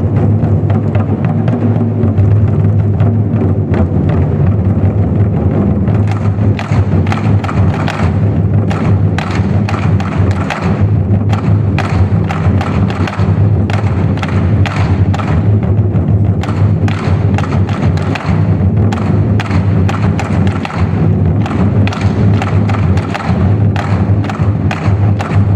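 24 Festive Drums ensemble playing large Chinese drums in a loud, fast, continuous rhythm. Sharp clicking strikes join the deep drum beats from about six seconds in.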